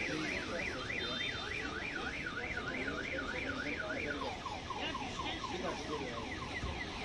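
Car alarm sounding: a fast up-and-down warble, about three sweeps a second, switching about four seconds in to a different pattern of quick repeated chirps.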